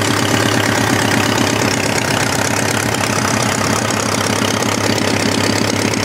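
Homemade four-cylinder engine built from Briggs & Stratton parts, idling steadily with an even, rapid pulse.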